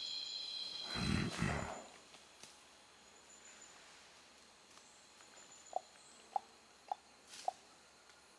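A silverback western lowland gorilla gives a low, deep grunt in two quick pulses about a second in, while feeding. Later come four short, clear pips, about half a second apart.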